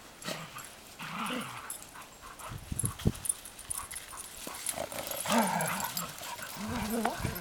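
Dogs at play giving short vocal calls that rise and fall in pitch, about three of them: one about a second in, one past the middle and one near the end.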